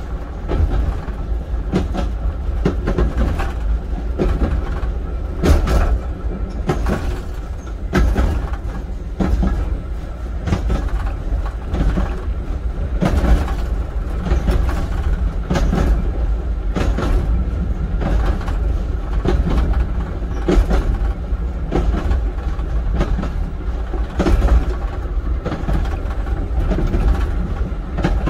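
Railcar running along the track, heard from inside the driving cab of trailer car PT3: a steady low rumble with irregular clicks and knocks from the wheels over the rail joints.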